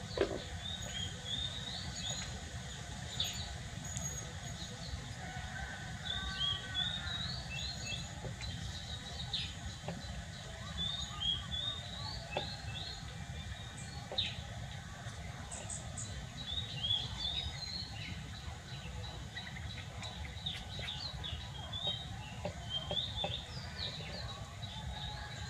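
Small birds chirping in quick clusters of short, high notes throughout, over a steady low background rumble.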